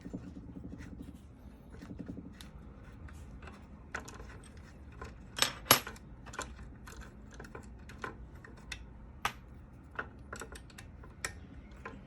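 Allen wrench turning and clicking against metal hex screws as they are undone, with a low rapid rattle for the first couple of seconds, then scattered sharp metallic clicks and clinks, the loudest two close together about five and a half seconds in.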